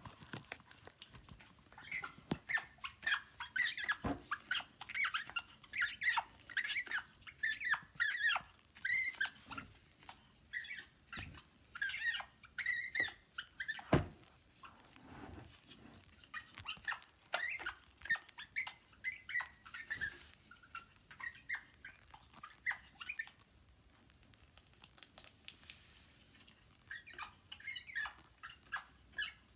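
African grey parrot making rapid short squeaky chirps and clicks, going quiet for a few seconds near the end and then starting again. A single sharp knock about halfway through is the loudest sound.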